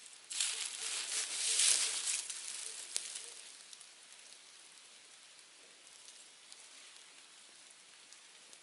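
Campfire burning: a rushing hiss, loud for the first three seconds or so, then a lower steady hiss with occasional sharp crackles.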